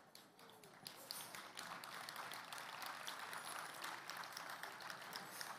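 Audience applauding faintly, a dense patter of many claps starting about a second in.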